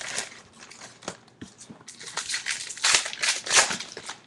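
Foil wrapper of a Topps Chrome trading-card pack crinkling as it is torn open and the cards are handled, in a run of short rustles that is loudest about three seconds in.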